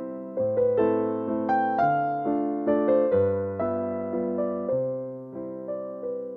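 Background piano music: a gentle melody of struck notes that each fade away, over held low bass notes.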